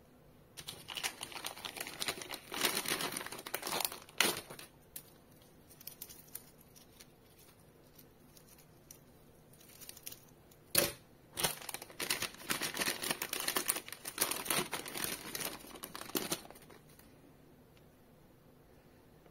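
Thin plastic packaging sleeves crinkling and rustling as watch straps are pulled out of them, in two spells with a quiet lull between. There is a single sharp click at the start of the second spell.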